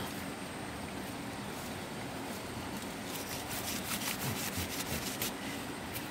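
Rustling and a quick run of crisp snaps as grass and small plant stems are cut and pulled up from the turf, starting about halfway in, over the steady wash of a flowing river.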